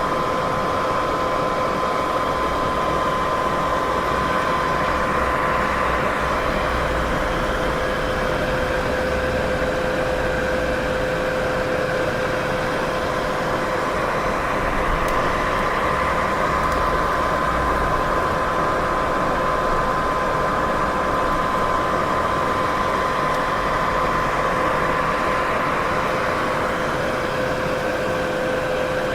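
Continuous sleep-aid noise, a steady rushing hiss over a low rumble with a constant hum at two pitches, like a machine idling. It swells and eases slightly and slowly, with no breaks.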